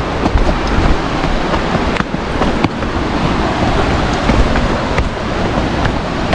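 Wind buffeting the microphone over a steady rushing noise, with scattered sharp clicks throughout.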